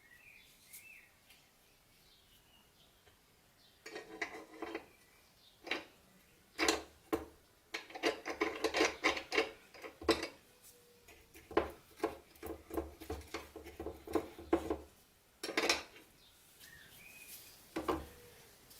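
Small metal padlock parts clinking and clicking in irregular bursts as they are handled, after a few quiet seconds.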